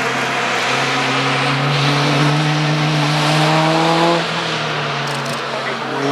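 Racing touring car engine under hard acceleration, its pitch climbing steadily for about four seconds, then cutting back abruptly with a lower engine note after.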